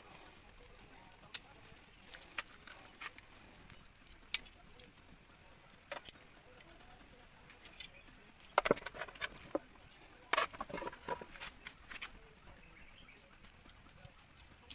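Crickets or similar insects chirping in a steady, high-pitched drone. Scattered short clicks and knocks come through it, bunched together a little past halfway.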